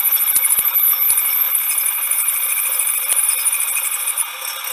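Metal lathe with a capstan turret turning a T-nut blank down to 7 mm diameter: a steady, noisy cutting hiss with a few sharp clicks in the first second, heard thin through a video call's audio.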